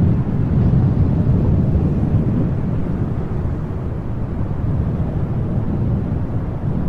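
Wind blowing as a steady low rumble that swells and eases slightly.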